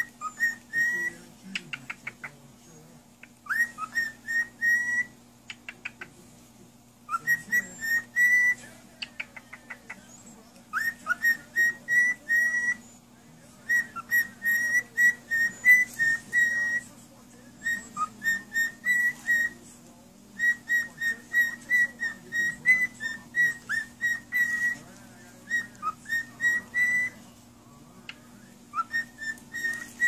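Cockatiel whistling a song: phrases of quick high whistled notes, repeated again and again with short pauses between, with a few rapid chirps mixed in.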